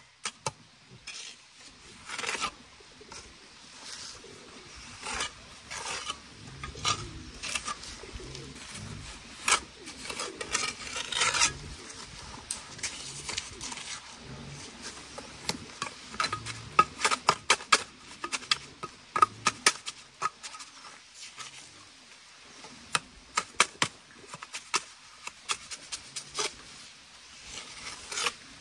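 Steel trowel scraping and tapping wet cement mortar on concrete blocks, in irregular short scrapes and sharp clicks.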